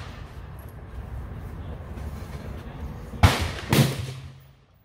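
Two gunshots on an outdoor firing range, sharp cracks about half a second apart, each with a short echoing tail. They are too close together to come from the bolt-action rifle lying still on the rest, so they come from other shooters on the line.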